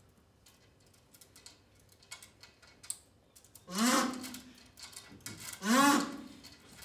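A performer's voice gives two drawn-out wordless calls a couple of seconds apart, each rising and then falling in pitch. Faint clicks and rustles come before them.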